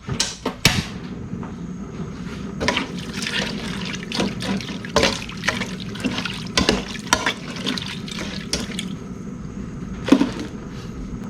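Water being poured and sloshing into a cooking pot of chopped pork and spices, with scattered clinks and knocks of a utensil against the pot.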